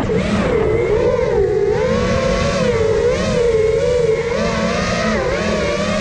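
Motors and propellers of an iFlight Nazgul Evoque 5-inch freestyle FPV quadcopter whining, heard from on board the drone. The pitch keeps rising and falling as the throttle is worked through banks and turns.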